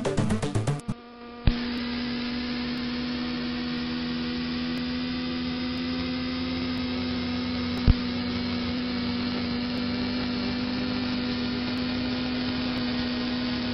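Music ends about a second in, giving way to a gyroplane's engine and propeller running at a steady speed, a constant hum over even noise, with two sharp clicks.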